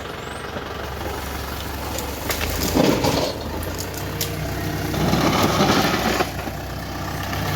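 Engine running steadily with a low hum, with louder rough, crunching stretches about three seconds in and again around five to six seconds in.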